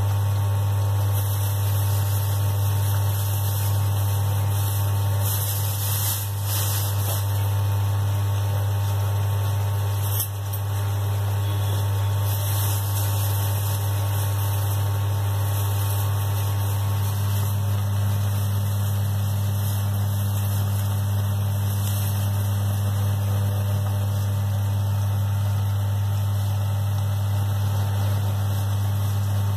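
Steady low machine-like hum with a constant hiss over it. The hiss fits the gravy simmering in the wok.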